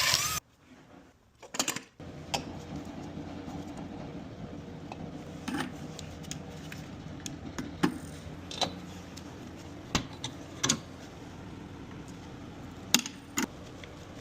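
A power drill's whine cuts off just as it begins, then scattered metallic clinks and taps of hand tools working on a refrigerator's compressor, over a steady low hum.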